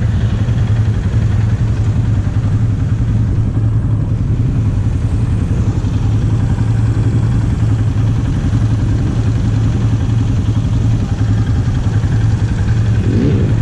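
ATV engine idling steadily with a low, even hum.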